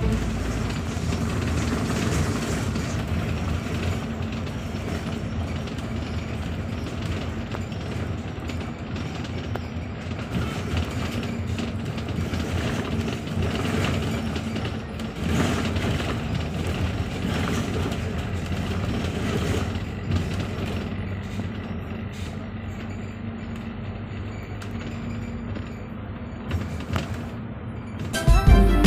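Double-decker bus on the move, heard from inside on the upper deck: a steady engine drone under road and cabin noise.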